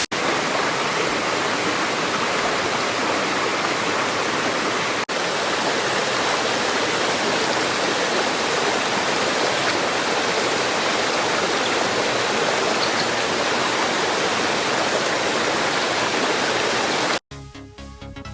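Waterfall and mountain stream rushing in a steady, dense roar of water. It cuts off suddenly near the end and electronic music begins.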